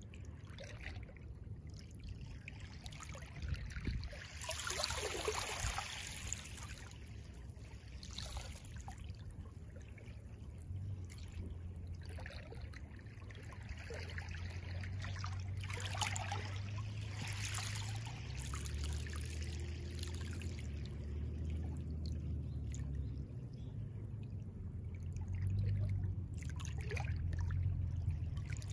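Small waves lapping and splashing softly at the shoreline of a calm sea, in irregular splashes every few seconds. A low rumble lies underneath and grows stronger from about a third of the way in.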